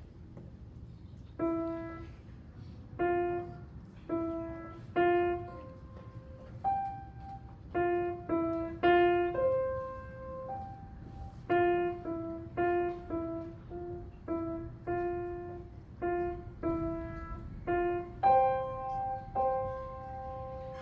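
Piano played by a student: a simple melody of single notes, one at a time, beginning about a second and a half in and ending on two notes held together near the end.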